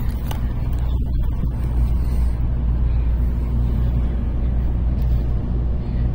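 Steady low rumble and hum of a Kodama Shinkansen train, with a hiss above it that dies down a little over two seconds in.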